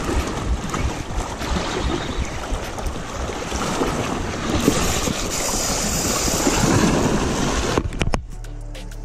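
Wind buffeting the microphone over the wash of sea waves. A little after eight seconds in it drops suddenly to a quieter low steady hum.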